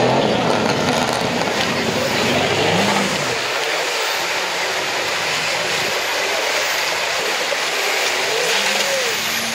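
Off-road 4x4 SUV's engine revving as it churns through a deep mud pit, the revs rising and falling several times over a steady noisy wash.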